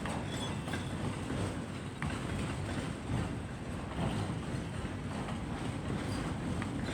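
CN freight train's cars rolling past on the rails: a steady low rumble with a few faint clicks from the wheels.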